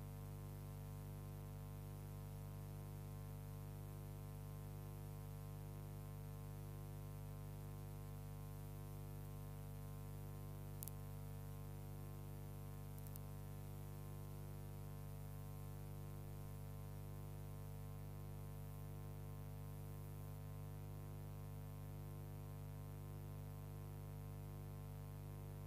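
Steady electrical hum with many overtones, unchanging throughout, over light hiss. A faint tick about eleven seconds in and another two seconds later.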